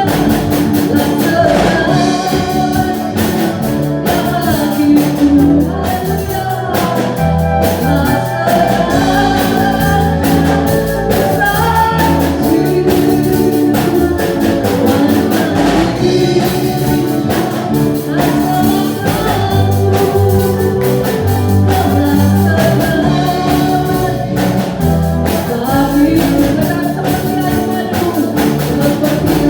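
Christian worship song sung in Indonesian, a voice singing the melody over a band with bass and drums.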